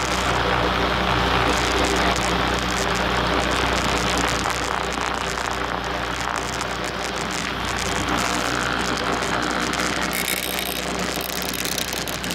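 Four-wheeler engine running steadily while it drives across grass, with wind and rumble on the microphone.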